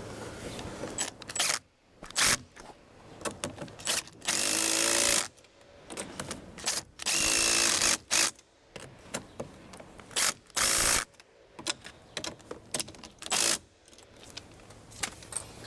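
Cordless drill-driver on a long socket extension, running in a series of short and longer bursts as it drives the mirror's 10 mm mounting nuts onto their studs. The motor speeds up and slows down on each run, and the two longest runs last about a second each. There are small knocks of handling between the runs.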